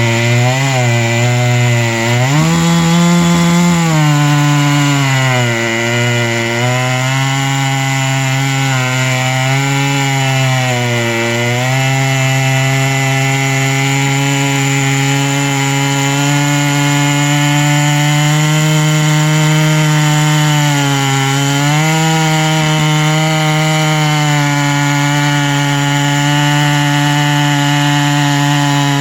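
Two-stroke chainsaw running at full throttle under load, ripping a log lengthwise on a chainsaw mill. The engine note sags and recovers several times in the first dozen seconds and once more later, and otherwise holds steady as the chain cuts.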